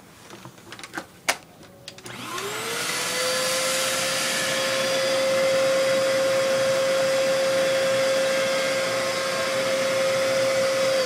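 Dyson upright vacuum cleaner running without its washable foam filter, drawing air through its hose. After a sharp knock about a second in, the motor spins up with a rising whine about two seconds in, holds a steady whine over a rushing of air, and begins to wind down at the very end.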